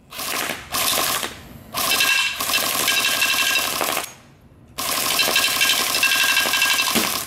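A&K Masada electric airsoft rifle (AEG) firing on full auto in four bursts: two short ones, then two long bursts of more than two seconds each.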